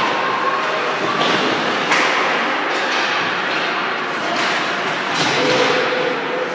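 Ice hockey play in an arena: several sharp clacks of sticks and puck over the steady scrape of skates on the ice, with scattered shouts, echoing in the large rink.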